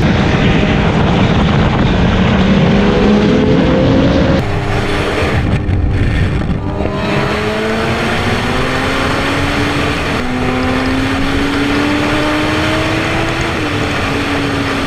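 Sport motorcycle engine pulling under acceleration, its pitch climbing steadily and dropping at gear changes about four seconds in and again near the end, over heavy wind rush.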